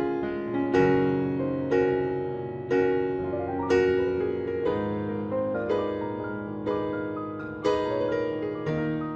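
Piano music: chords struck at a steady pace of about one a second, each ringing and fading before the next.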